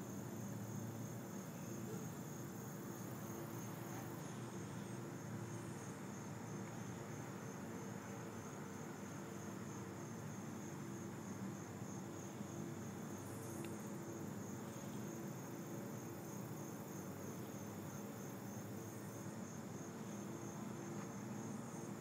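Crickets chirping in an even, pulsing rhythm, faint and high-pitched, over a low steady hum.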